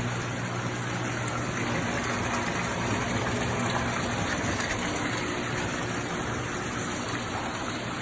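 Steady rush of running, splashing water, as from the circulating pumps of bait and fish tanks, with a low steady hum underneath.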